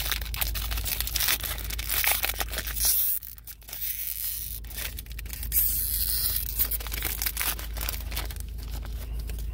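Foil wrapper of a trading-card pack being torn open and crinkled by hand: a run of rips and crackles, quieter for a moment about three seconds in.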